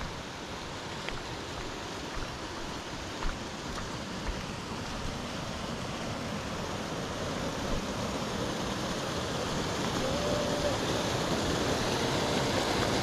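Rushing water, a steady hiss that grows gradually louder, with a few faint ticks in the first few seconds.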